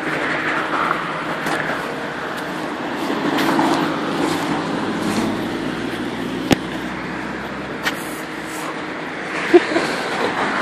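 Street traffic noise with a vehicle engine running steadily. A sharp click from handling the camera comes about six and a half seconds in, with two more knocks near the end.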